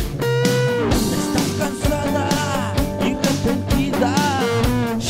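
Rock and roll song in G minor played over a backing track, with electric guitar and a man singing.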